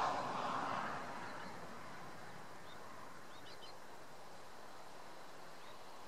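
Wind rushing through grass and shrubs, easing off within the first second to a steady faint rustle, with a few faint, short, high chirps from a small bird in the middle.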